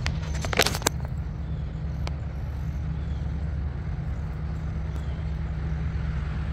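Steady low outdoor hum, such as distant traffic or a running machine, with a short cluster of sharp clicks about half a second in.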